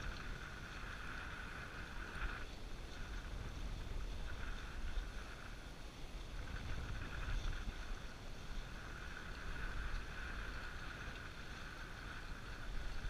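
Low wind rumble on the microphone with a faint high hum that comes and goes.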